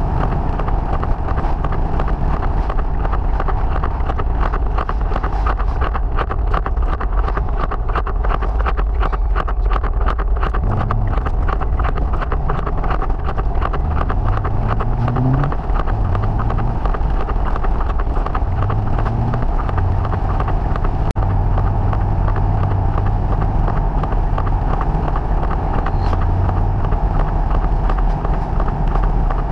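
Triumph TR5's straight-six engine running as the car drives along a wet road, with tyre hiss and wind noise on the microphone. The engine note shifts up and down in a few short steps around the middle.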